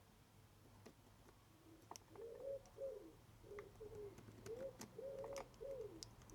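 Faint cooing of a pigeon: a run of short soft coos that starts about two seconds in, with a few light clicks among them.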